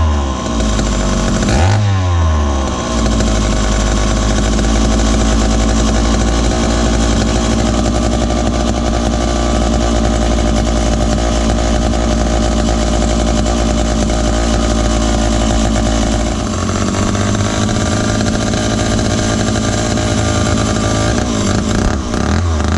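Dayton 2Z383 (Lancaster 40IL) two-stroke chainsaw engine running, revved twice at the start and then held at a steady high speed. About sixteen seconds in it drops to a lower, uneven speed, and it is revved again near the end.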